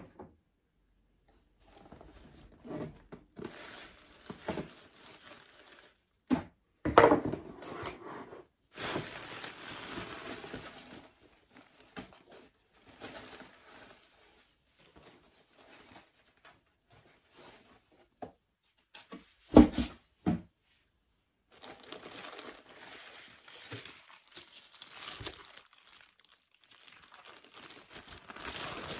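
Tissue paper and clear plastic wrapping rustling and crinkling in irregular bursts as they are handled and pulled from a cardboard shoe box, with a few sharp knocks, the loudest twice, about seven and twenty seconds in.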